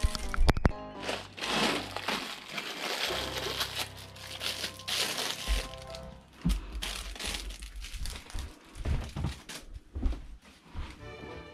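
Background music over kitchen food-preparation noises: irregular clicks and knocks with a rustling, crackling noise between them.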